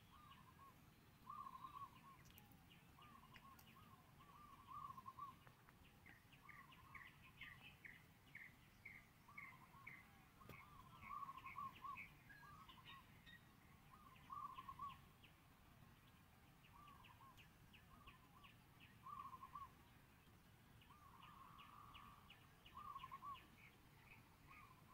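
Faint birdsong: several birds calling over and over, short low notes mixed with quick series of higher chirps.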